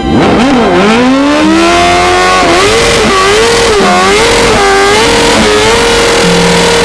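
Sport motorcycle engine revving hard during a stationary burnout. It climbs from low revs, is blipped up and down several times, then is held at steady high revs near the end, over the hiss of the spinning rear tyre.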